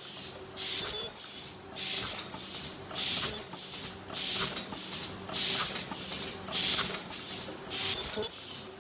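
Paper bowl forming machine running in production, with a loud hissing burst repeating about once a second over a faint steady hum. Each burst marks one machine cycle, close to the machine's rated 50–60 pieces a minute.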